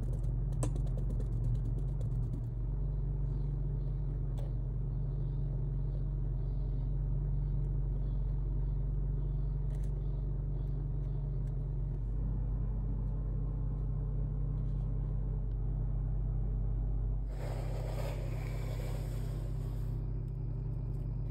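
Steady low rumble, with faint scrapes and taps of a brush and palette knife working texture paste on canvas. A few seconds of louder hiss come near the end.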